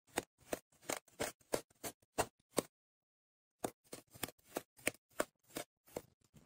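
Kinetic sand crunching in a run of short strokes, about three a second, with a pause of about a second in the middle before a second run.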